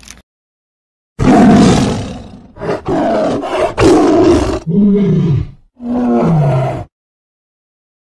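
Tiger roaring in four loud calls over about six seconds, the last two sliding down in pitch.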